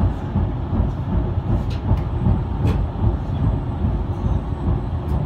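Tram running along a city street, heard from inside the car: a steady low rumble with a few sharp clicks.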